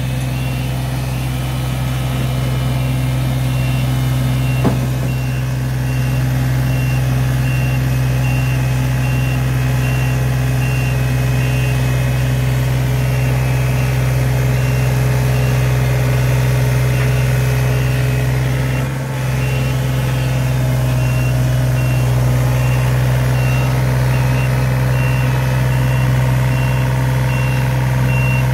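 John Deere 35D compact excavator's diesel engine running steadily under load, with its alarm beeping at a regular pace. The engine sound dips briefly about two-thirds of the way through.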